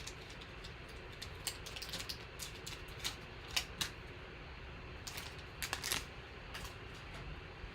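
Small, irregular clicks and light crinkles of trading cards and their packaging being handled, as a freshly opened pack is worked through by hand.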